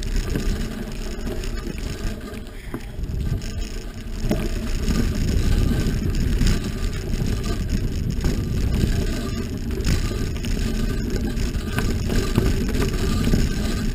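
Wind buffeting the microphone over a low rumble from riding fast along a dirt trail, steady throughout with small surges in loudness.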